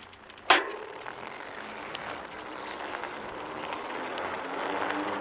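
A single sharp knock about half a second in, then a steady low background hiss.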